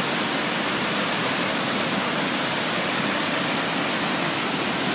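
Waterfall running high with spring water, a heavy flow pouring over the drop into the pool below: a steady, even rush of water noise.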